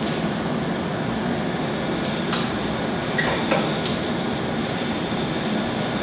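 Steady mechanical rumble with a constant hum and a few light clicks or knocks about halfway through.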